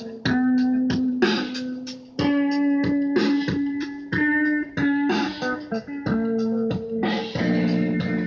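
Electric guitar played through a small amplifier: chords strummed in a steady rhythm, the notes ringing on between strokes.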